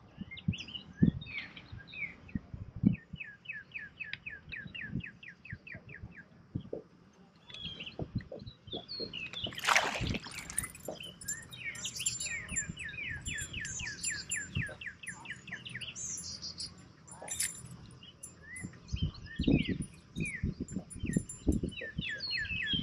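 Songbirds singing and chirping along the riverbank, including a rapid repeated trill that runs for a few seconds twice. Scattered low knocks are heard, and a brief loud rush comes about ten seconds in.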